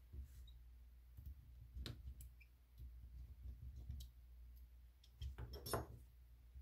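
Faint, scattered clicks and taps of small repair tools against the plastic lower plate and frame of a Samsung Galaxy S10+ as the plate is worked loose. Underneath runs a low, steady hum.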